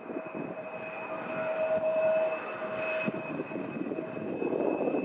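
Hiss of an air traffic control radio channel between transmissions, narrow and band-limited like the speech around it, with two faint steady tones running through it.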